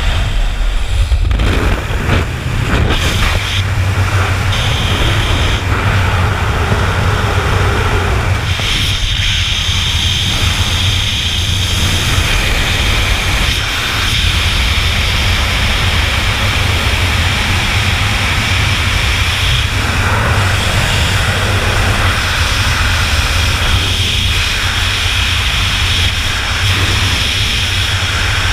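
Freefall wind rushing over a body-mounted GoPro action camera: a loud, steady buffeting roar of wind. At the start, the jump plane's engine and slipstream are heard at the open door during the exit.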